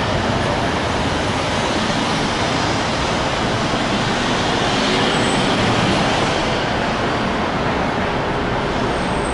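Steady, continuous noise of road traffic, with no distinct events standing out.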